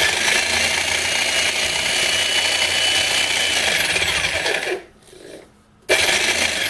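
VEVOR 2200-watt electric demolition jackhammer running free, not yet chopping into concrete: a loud, steady run of about five seconds that stops, then starts again about a second later.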